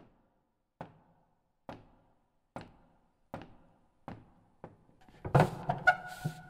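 Slow footsteps on a wooden stage, about one step every 0.8 s, each with a short echo, followed a little after five seconds by a louder cluster of knocks and a brief creak as the player sits down at a grand piano.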